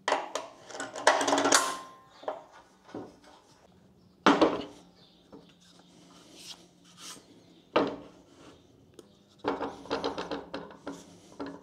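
Metal clanks, knocks and scrapes as a steel square tube is handled and laid down on a steel welding table, with a cluster of knocks near the start and another near the end.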